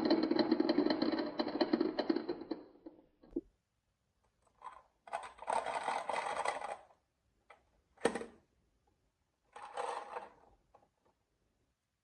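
Marbles rolling and clattering along a HABA wooden marble run: a dense, rapid rattle for the first two and a half seconds that dies away, then several shorter bursts of rolling and clicking a few seconds apart.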